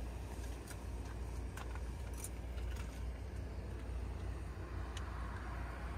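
Distant road traffic: a steady low rumble, with a few faint clicks.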